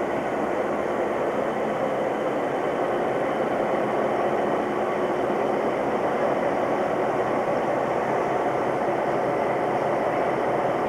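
Queensland Railways narrow-gauge diesel locomotives idling: a steady, even engine hum that does not rise or fall.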